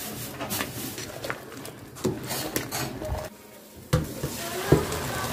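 Pots and metal utensils clattering while pasta cooks: a slotted skimmer knocking against a pot of boiling water, then, after a short break, a clank and hot water splashing through a plastic colander into a steel sink, with one sharp knock near the end.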